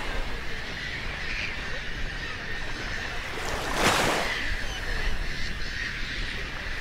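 Steady rushing wind and water noise, with a faint steady high whine and one loud whoosh about four seconds in.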